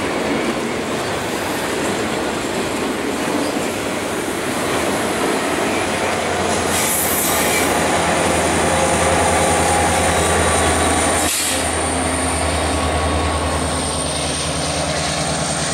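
Autorack freight cars rolling past with steady wheel-and-rail noise, then the Union Pacific SD70ACe rear distributed-power locomotive passes, its EMD two-stroke V16 diesel droning loudest about eight to eleven seconds in. A thin, high wheel squeal runs under it, and the engine drone carries on as the train moves off.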